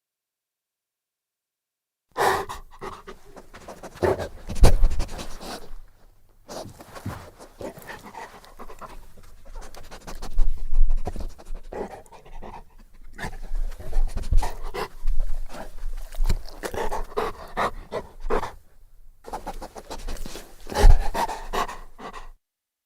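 Saint Bernard panting in uneven runs of breaths, with a few short pauses. It starts about two seconds in and stops shortly before the end.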